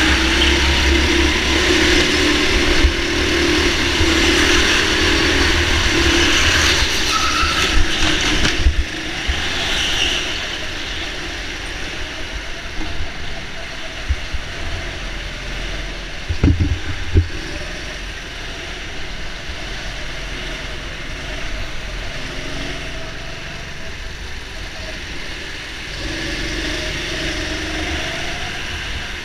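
Go-kart motor running at speed around an indoor track, heard on board: a steady drone over a haze of noise, louder for the first third and then easing off. Two sharp knocks sound a little past halfway.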